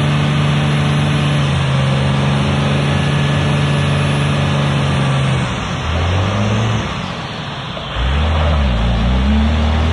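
Dodge Ram pickup's Cummins turbo-diesel running under load in a mud hole: a steady note for about five seconds, then the revs fall and swing up and down several times, dipping near eight seconds before climbing again.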